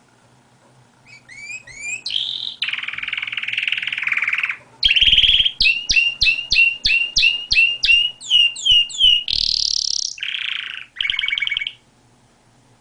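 Domestic canary singing a varied song: a few rising chirps, a buzzy rolled trill, then a fast run of a dozen or so repeated rising notes, ending in short trills. The song starts about a second in and stops about a second before the end.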